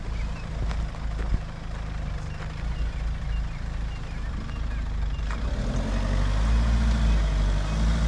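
Off-road 4x4's engine running under load, then revving up and down in repeated surges from about six seconds in, getting louder.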